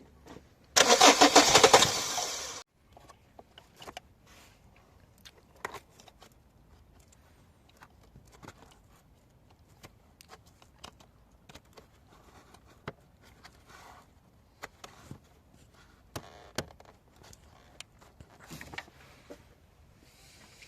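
Renault engine cranking on the starter for about two seconds without firing, then cutting off suddenly. This is the no-start that goes with a DF116 camshaft sensor 'no signal' fault. Faint scattered clicks and knocks follow.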